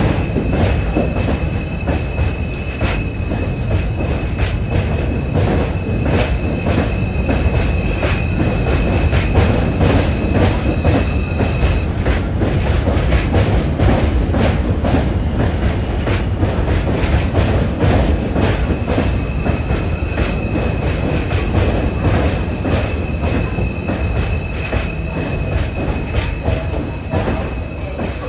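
New York City subway J train running on the rails: a loud steady rumble with irregular clacking of the wheels over rail joints. A high, steady wheel squeal sounds over it, breaks off about twelve seconds in and returns about five seconds later. The train eases off slightly near the end.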